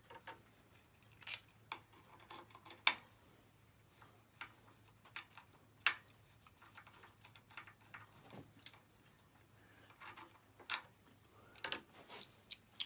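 Light, irregular clicks and taps of hand tools and small parts as the voltage regulator is fitted onto a Kohler Courage 20 hp engine and its bolts are started.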